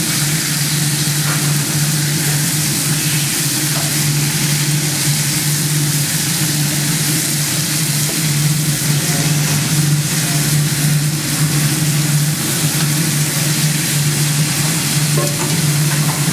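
Beef short ribs searing in a hot stainless steel frying pan: a steady sizzle over a steady low hum, with a few light clicks as tongs turn the pieces.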